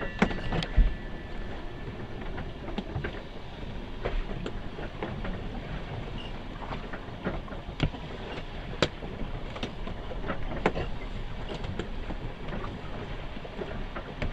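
Steady rush of water and wind heard from inside a small sailboat's cabin, with scattered light clicks and knocks.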